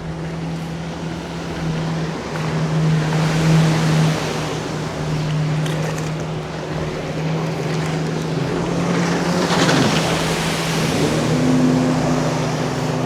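Jet skis running at full throttle close by, their engines a steady drone under a rushing of water, swelling as they pass twice, with the pitch dropping as one goes by about ten seconds in.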